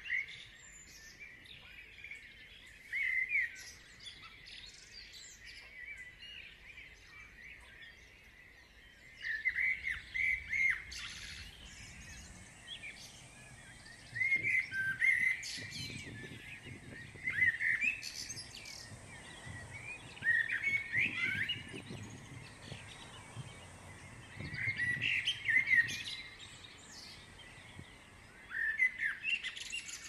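A songbird singing short twittering phrases every few seconds, with quiet pauses between them.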